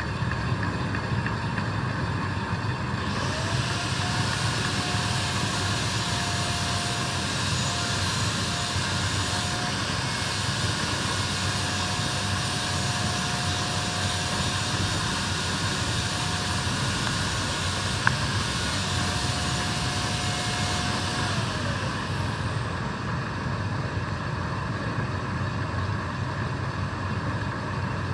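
Lathe running steadily. From about three seconds in, a steady whine and a hiss join it, the whine rising at the start and falling away about twenty-two seconds in; a single sharp click comes near the end of that stretch.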